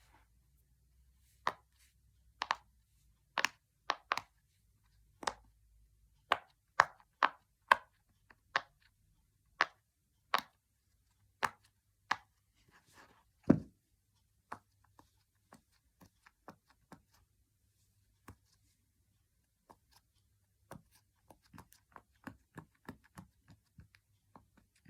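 Silicone Pop It fidget toy bubbles being pressed in and popping: a series of sharp separate pops, roughly one or two a second, with one louder pop and thud about halfway, then fainter, quicker pops near the end.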